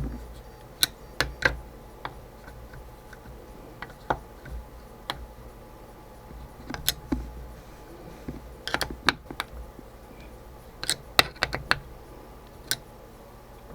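Scattered light clicks and knocks, irregular and sometimes in quick clusters, of metal parts and tools being handled while a mini lathe's compound is fitted and lined up.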